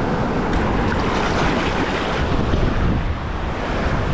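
Small surf waves washing up and back over the sand at the water's edge, with wind buffeting the microphone.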